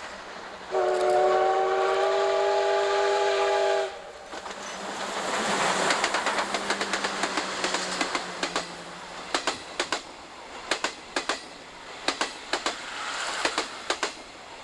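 A steam locomotive whistle, C57 1's, blows one held note of several tones for about three seconds. The double-headed train then passes: a rush of running noise builds and peaks a couple of seconds later. After that come wheels clicking over the rail joints, mostly in pairs, thinning out toward the end.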